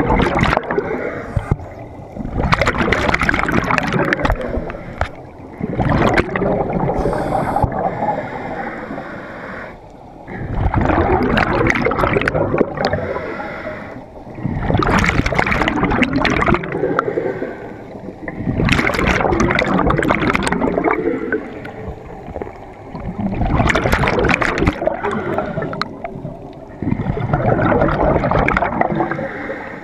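Scuba diver's exhaled bubbles gurgling and rushing past the microphone underwater, in surges of two to three seconds that come back about every four seconds with each breath through the regulator.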